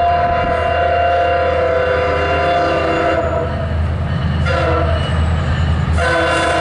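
Diesel locomotive air horn sounding a multi-note chord: a long blast of about three seconds, a shorter one, then another long one starting near the end, the pattern of a grade-crossing warning. Low diesel engine rumble runs beneath.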